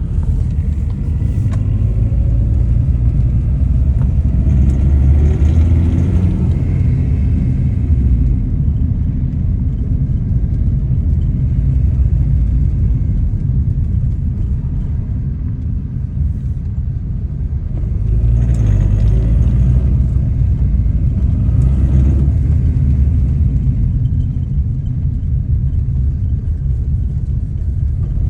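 Lada Priora's engine running with a heavy low rumble, getting louder twice, about five seconds in and again from about eighteen to twenty-two seconds in, as the gas is pressed. Under throttle there is a knock whose cause the owner cannot tell, and he is not even sure it is a knock.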